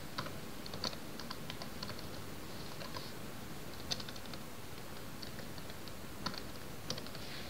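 Computer keyboard typing: faint, irregular keystroke clicks spaced out over a few seconds, over a steady background hiss.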